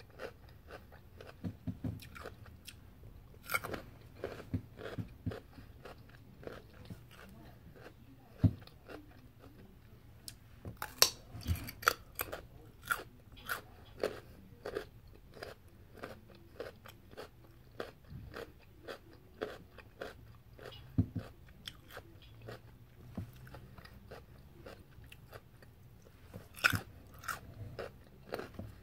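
Close-miked chewing of toasted multigrain avocado egg toast, with irregular crunches and wet mouth clicks between bites.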